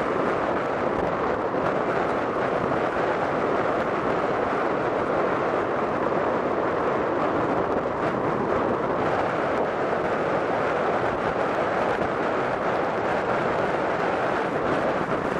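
Steady wind blowing over the camera microphone, a constant rushing noise with no let-up.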